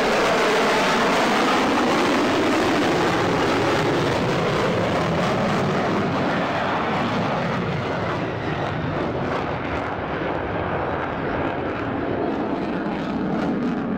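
Fighter jet flying past at speed, its engine noise loud and steady, easing slightly about halfway through.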